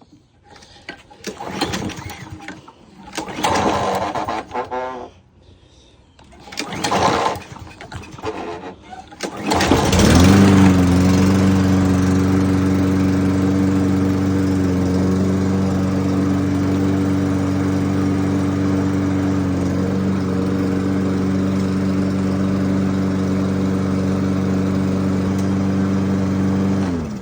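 Toro Recycler push mower's small engine being cranked several times in short spells. About ten seconds in it catches on carb cleaner sprayed into the carburettor, then runs at a steady speed until it cuts off near the end. It would not start on gasoline alone, which points to fuel not reaching the carburettor.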